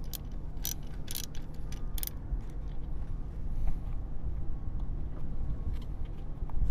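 Ratchet wrench clicking a few times in the first two seconds as it loosens the engine-oil drain bolt on a Yamaha outboard, followed by the bolt being turned out by hand, over a steady low rumble.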